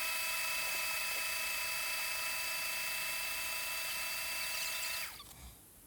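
Electric countertop blender running at a steady high whine as it blends peeled ginger roots with water, then switching off about five seconds in.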